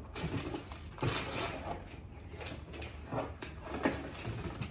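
Irregular rustling and light knocks of papers and packaging being handled.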